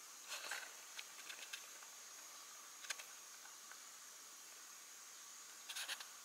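Quiet room tone: a steady faint hiss, broken by a few short clusters of soft clicks and ticks, about half a second in, around a second in, near three seconds and again near the end.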